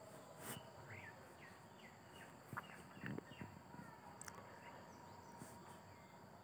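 Near silence, with a few faint scrapes of a spoon stirring a thick, pasty milk-and-nut mixture in a nonstick pan, and faint short chirps of a bird in the background.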